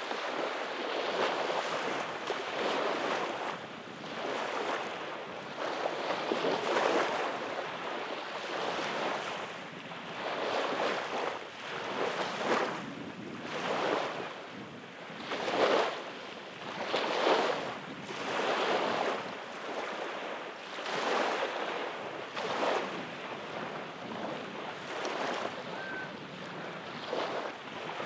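Small waves breaking and washing up a sandy beach, the rush of surf swelling and falling every second or two.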